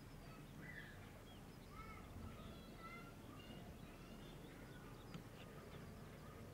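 Faint birdsong: many short chirps and whistles, over a low, steady distant rumble.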